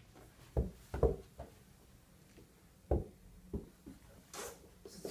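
About four soft, dull thumps in the first three and a half seconds, a toddler's play ball landing and bouncing on carpet, with a brief hiss near the end.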